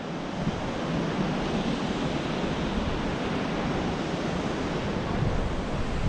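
Steady rushing wind noise buffeting the GoPro's microphone, with a fluttering low rumble.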